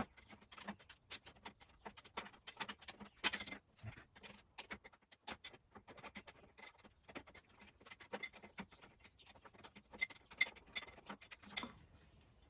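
Rapid, irregular metallic ticking and clicking from hand tools unscrewing the threaded, spring-loaded top plug of a motorcycle fork tube.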